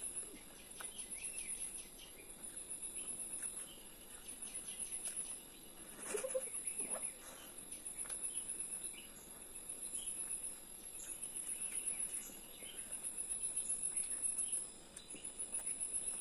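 Insects chirping in high-pitched pulsing phrases that repeat every second or two, with a brief sound about six seconds in.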